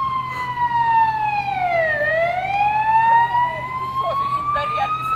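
Fire engine siren wailing: one slow tone that falls for about two seconds and then climbs steadily again, over a faint steady low hum.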